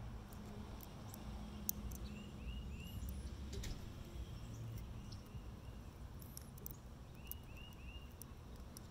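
Birds calling in the background, a phrase of three quick chirps heard twice, with thin high calls between. A few sharp clicks from the spinner's metal washers and plastic frame being handled; the loudest comes a little under two seconds in.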